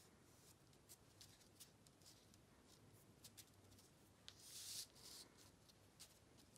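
Faint paper-handling sounds: light taps and rustles of cardstock pieces being slid into place and pressed down on a card base, with a brief louder paper rustle about four and a half seconds in.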